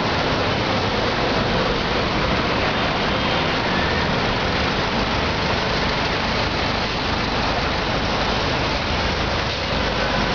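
Steady city street traffic: buses and a small box truck driving past, engines running.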